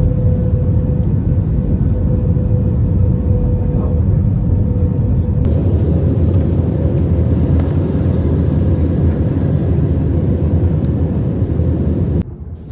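Steady, loud rumble of a jet airliner's engines and rushing air heard inside the cabin, with a thin steady hum over it in the first half. The sound shifts slightly about halfway through and drops off suddenly just before the end.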